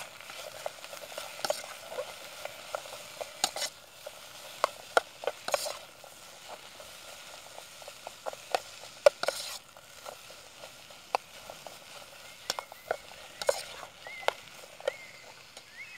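A spoon stirring and scraping in a small metal cook pot while chorizo and smoked bacon fry in it over an alcohol burner: irregular clinks and scrapes over a steady sizzle.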